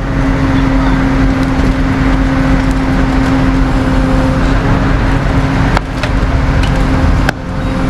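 A vehicle engine held at steady revs under load, a constant drone over a rushing noise, dipping briefly twice near the end.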